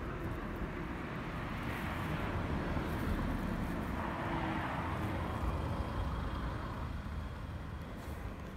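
A passing road vehicle: its noise swells over the first few seconds, is loudest around the middle and fades away near the end, over a steady low outdoor rumble.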